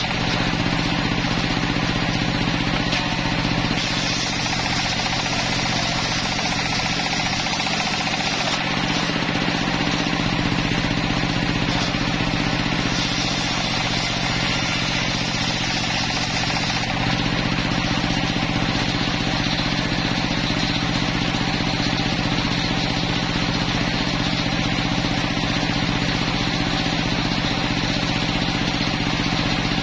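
Homemade circular sawmill running steadily, its engine-driven blade spinning with a constant drone. The blade rips through planks on and off, adding a rising hiss of sawing during two stretches.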